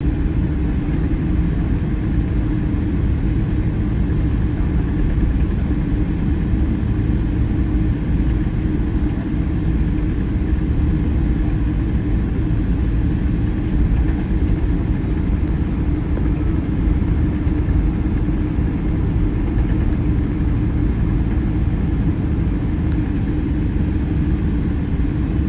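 Boeing 777-300's Rolls-Royce Trent 800 engines at idle thrust while the airliner taxis, heard from inside the cabin as a steady low rumble.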